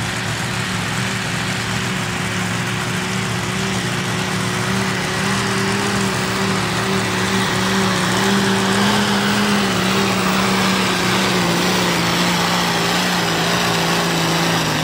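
Diesel engine of a competition pulling tractor running flat out under full load while it drags the weight sled, its single stack belching black smoke. The engine note holds steady, then sags a little in pitch about three-quarters of the way through as the sled's load builds.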